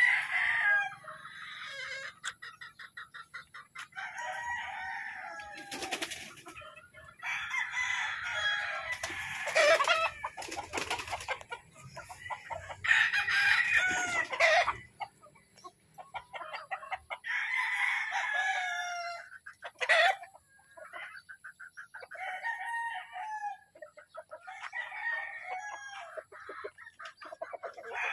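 Gamefowl roosters crowing one after another, about eight crows in all, with quick clucking between them. A few sharp knocks come in between the crows.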